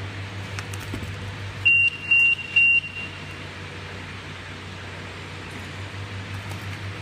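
Conveyor needle detector (REHOO NDC-A-300MM) sounding its alarm as a garment passes through its tunnel: three short, high beeps in quick succession, the signal that a needle or other metal has been detected. A steady low hum from the machine runs beneath, dropping away after the beeps and returning about six seconds in.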